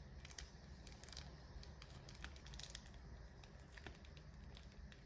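Faint light clicks and crinkling of a small plastic bag of sewing needles being handled.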